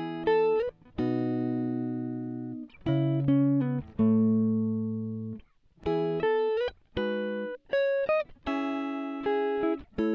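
Music: a clean plucked guitar playing single notes and chords, each struck and left to ring and fade.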